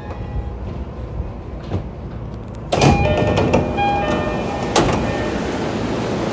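Commuter train's sliding passenger door opening: a low rumble, then a sudden loud rush about three seconds in with a few short tones, a sharp click near five seconds, and steady noise after.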